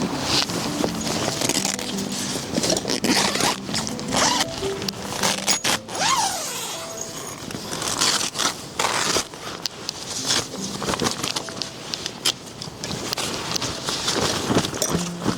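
Repeated short zipping and scraping strokes, like a zipper being worked and camping gear being handled, over faint background music.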